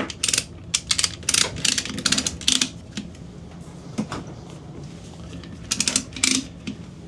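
Retractable ratchet strap being ratcheted tight: quick runs of sharp ratchet clicks through the first few seconds, a single click about four seconds in, and another short run near the end.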